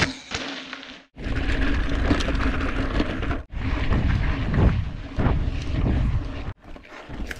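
Mountain bike riding a rough dirt track, heard through an action camera: heavy wind rumble on the microphone, with tyre noise and knocks from the bike over the bumps. The sound breaks off sharply three times as the footage cuts between clips.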